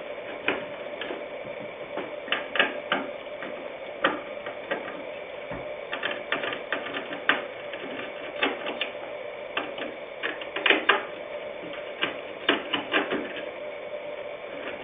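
Irregular light clicks and taps of a screwdriver working small screws and metal parts while a computer motherboard is unscrewed from its chassis, over a steady background hum.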